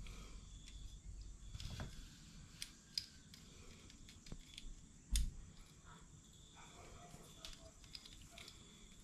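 Scattered small clicks and taps of test leads and a fuel pump assembly being handled while they are wired up, with one louder thump about five seconds in.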